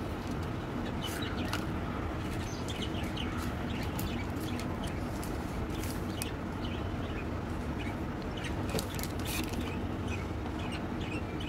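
Plastic candy wrappers crinkling and rustling in the hands as they are handled and torn open, as many small crackles over a steady low hum, with faint high chirps in the background.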